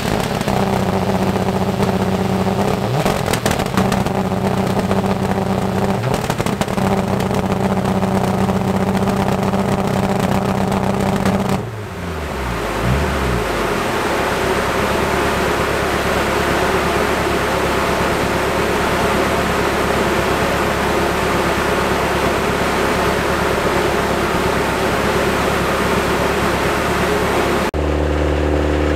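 Turbocharged flat-four engine of an N12 Subaru Impreza rally car running hard at steady high revs on a rolling-road dyno, with sharp pops and cracks from the exhaust early on. About twelve seconds in the revs drop away, falling in pitch, and the engine settles to a steady lower drone. Near the end it switches abruptly to a cleaner, steadier engine note.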